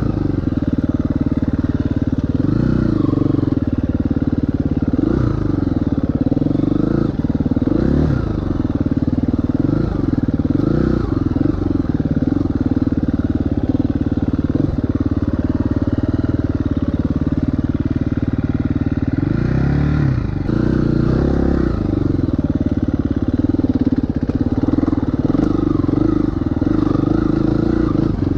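2018 KTM 350 EXC-F's single-cylinder four-stroke engine under riding load, revving up and falling back every second or two as the throttle is opened and closed.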